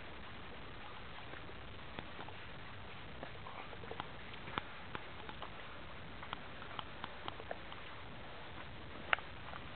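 Scattered light clicks and scuffs of hikers' footsteps on the trail over a steady low hiss, with one sharper click about nine seconds in.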